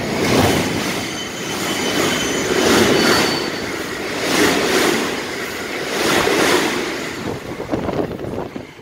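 Freight train's container flatcars passing close at speed, the wheels rumbling over the rail joints in swells about every two seconds as each car's bogies go by, with a faint high wheel squeal. The noise drops away near the end as the last car passes.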